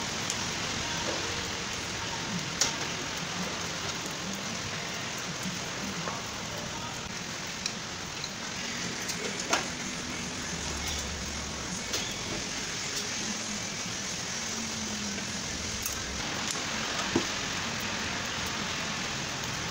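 Scattered sharp clicks and knocks of parts being handled and fitted on a front-loading washing machine's drum assembly, over a steady hiss.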